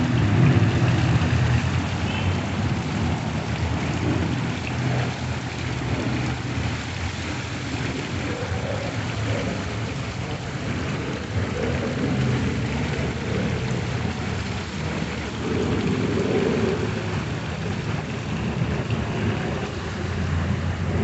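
Steady low rumbling noise of wind buffeting a phone's microphone outdoors, with no speech.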